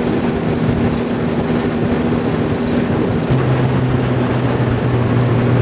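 Tiller-steered outboard motor driving a small skiff at speed, a steady engine hum under wind and water noise; a deeper engine note comes in about three seconds in.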